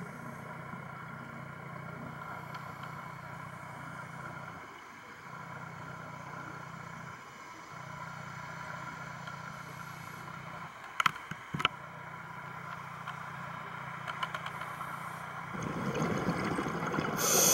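Underwater ambience picked up by a scuba diver's camera: a steady low hum, a few sharp clicks about 11 seconds in, and near the end a loud rush of exhaled bubbles from the diver's regulator.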